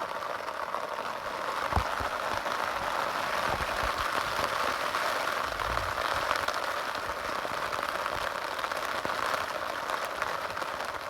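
Heavy rain pouring down, a dense, steady hiss, with a couple of brief low thumps.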